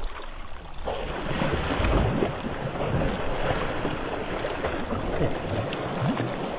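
Steady rush and splash of sea water around a sea kayak, swelling about a second in, as dolphins surface and leap right beside the bow.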